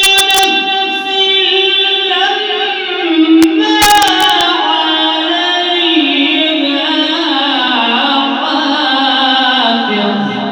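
A man's voice in Quran recitation (tajweed), holding one long ornamented melodic phrase whose pitch steps and slides slowly downward before it fades near the end. Two brief sharp clicks sound, one at the start and one about four seconds in.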